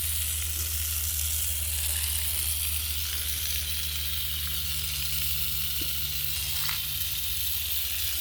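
Water spraying with a steady hiss, over a low steady hum.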